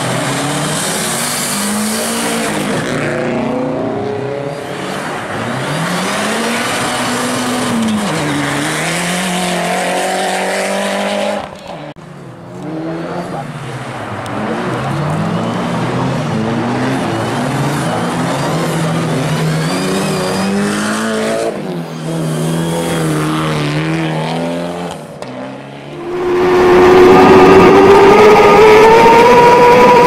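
Rally car engines on a snow and ice circuit, their pitch rising and falling as the drivers work the throttle. About 26 s in, a much louder onboard engine takes over and climbs steadily in revs.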